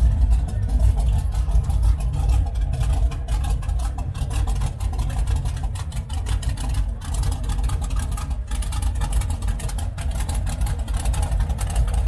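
Hot rod engine idling with a steady low rumble, its exhaust pulses running fast and even. Crowd chatter underneath.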